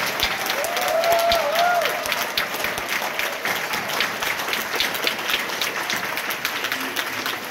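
Congregation applauding: many hands clapping together, loudest about a second in and gradually dying down.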